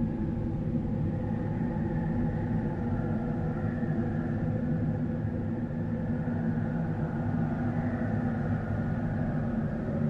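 Eerie horror wind sound effect: a steady low rumble of wind with faint higher tones that slowly waver in pitch.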